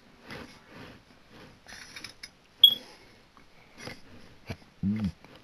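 Metal can badges being picked up and set down on a cloth playmat: soft taps and rustles, with one sharp metallic click a little over halfway through. Just before the end comes a short low-pitched sound that rises and falls.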